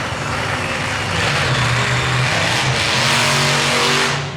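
Monster truck engine running hard and revving as the truck drives around the arena, getting louder from about a second in and rising in pitch. It drops away abruptly near the end.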